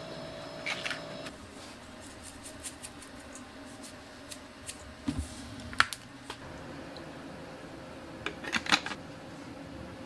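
Quiet kitchen room tone with a faint steady hum, broken by a few scattered light clicks and knocks, a dull thump about five seconds in, and a short cluster of clicks near the end.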